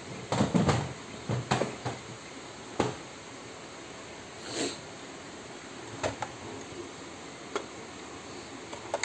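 Scattered knocks and clicks of a Nerf Stryfe's hollow plastic shell being handled and taken apart, with a cluster of knocks in the first second and a brief scrape about halfway through.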